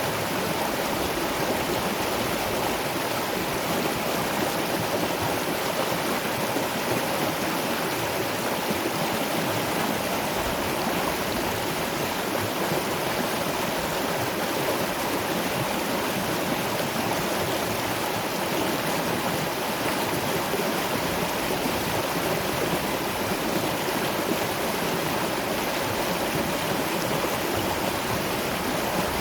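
Running water of a waterfall and river, a steady, unbroken rush with no changes.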